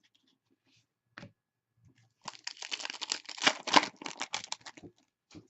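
Upper Deck hockey trading cards and their pack wrapping being handled: a single click, then a dense crinkling crackle lasting about two and a half seconds from about two seconds in.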